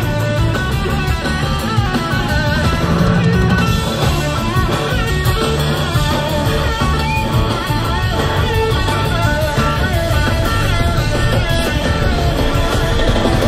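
Live blues-rock band instrumental: an electric slide guitar plays a lead line of gliding, wavering notes over two drum kits, bass and organ.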